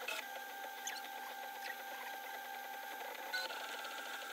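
Entina Tina2S compact 3D printer running a print: its stepper motors give steady high tones while the print head moves, with small clicks and ticks. The tones shift about three and a half seconds in, as the sped-up footage jumps ahead.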